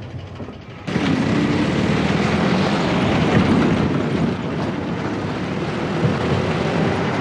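Military jeep driving along a road: engine running with tyre and road noise, jumping louder about a second in and then holding steady.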